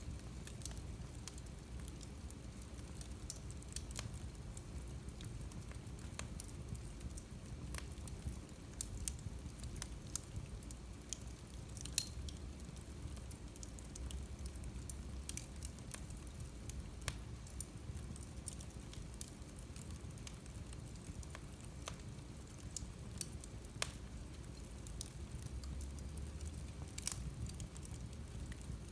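Wood fire burning in a fireplace: a low steady rumble of flames with irregular sharp crackles and pops, one louder pop about twelve seconds in.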